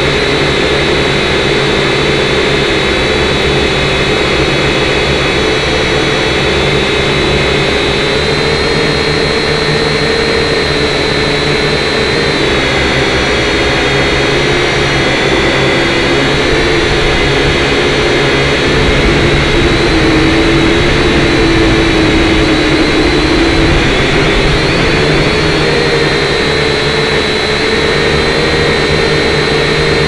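Syma X5C quadcopter's small brushed motors and propellers whining steadily, loud and close as heard through its onboard camera; the pitch wavers a little as the throttle changes.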